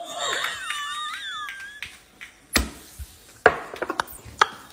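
A small parrot whistling a wavering, warbling call for about two seconds, followed by several sharp clicks spaced irregularly.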